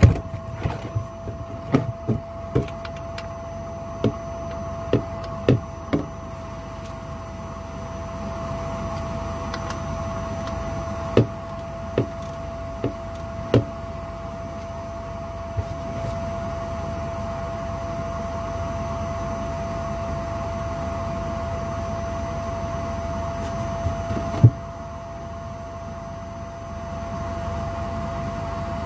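A vacuum cleaner runs with a steady hum, drawing a vacuum through the engine's oil filler to hold the oil in while the sump drain plug is out. Sharp clicks and knocks from a ratchet and hand tools on the sump plug come several times in the first few seconds and now and then after, with one near the end.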